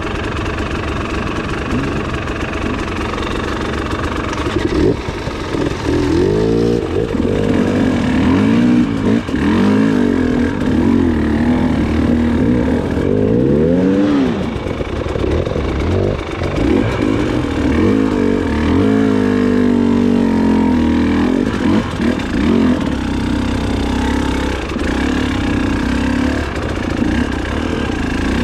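Motorcycle engine revving up and down over and over, its pitch rising and falling in waves, then running more evenly in the second half.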